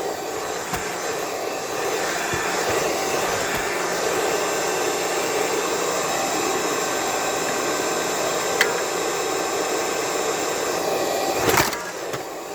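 Vintage Eureka The Boss vacuum cleaner running, its motor giving a steady whir, with a sharp knock near the end.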